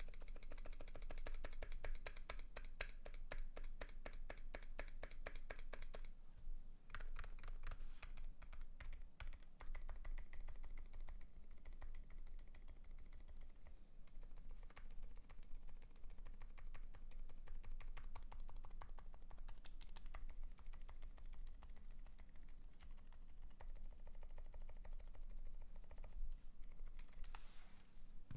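Fast, continuous typing on a custom 60% mechanical keyboard fitted with lubed Durock Dolphin silent linear switches on an aluminium plate, giving soft, muted keystrokes. The typing is densest in the first few seconds, with a few louder strokes scattered through.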